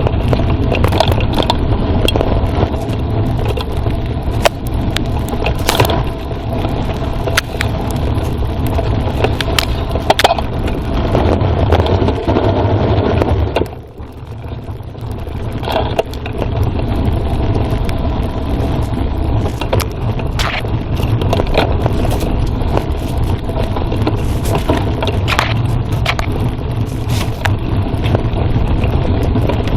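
Mountain bike riding down a forest trail: a steady low rumble of tyres and frame over rough ground, with frequent sharp rattles and knocks from bumps. It eases off briefly about fourteen seconds in, then picks up again.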